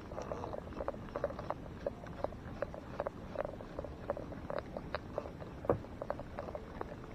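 Small irregular ticks and clicks of water lapping against a small outrigger boat's hull and floats, over a low rumble, with one sharper knock a little before six seconds in.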